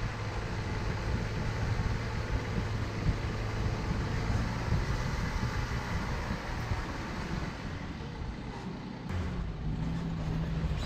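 A car engine running steadily under a rough, rumbling noise, as from a vehicle driving; about nine seconds in the engine note steps up in pitch.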